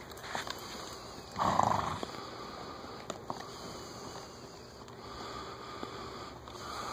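Quarter horse mare snorting once, a short blowing rush about a second and a half in, with faint hoof ticks on the soft arena dirt as she is ridden.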